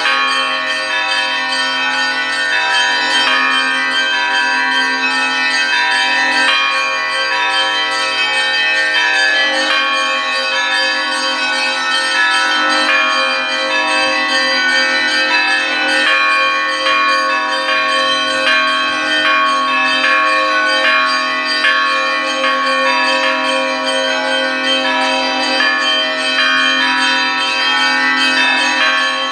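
Russian Orthodox church bells ringing in a continuous peal: many bells struck in quick succession, their tones ringing on and overlapping.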